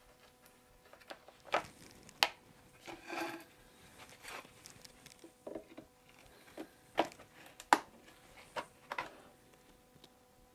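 Scattered light wooden taps and clicks, with a short squishy scrape about three seconds in, as thin oak spline strips are set and pressed by hand into an epoxy-lined slot in a chair rocker.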